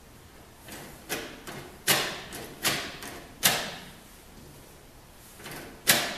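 A newly fitted entry door knob and latch being worked: a string of sharp clacks, about one a second, then another near the end, each with a short ringing tail as the latch bolt snaps and the knob turns and springs back.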